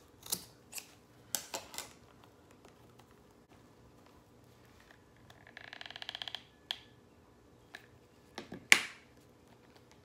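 Scissors snipping through nautical rope, several quick cuts in the first two seconds. About five and a half seconds in, a hot glue gun's trigger rattles for about a second as glue is fed onto the rope end, and a sharp click near the end is the loudest sound.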